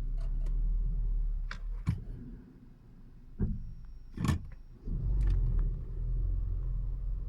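Low, steady rumble of a Skoda Superb MK II car heard from inside the cabin. The rumble dips for about three seconds in the middle. Several sharp clicks or knocks are heard, the loudest a little past the middle.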